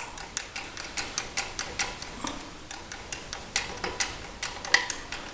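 Irregular metallic clicks and ticks, about three or four a second, as the O-ring-sealed side cap of a Troy-Bilt tiller transmission is twisted and wiggled out of its housing.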